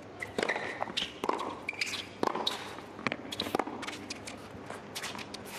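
Tennis rally on a hard court: the ball struck by rackets and bouncing, with players' shoes squeaking and scuffing on the court between shots.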